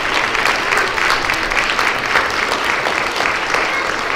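An audience of young schoolchildren applauding: dense, steady clapping.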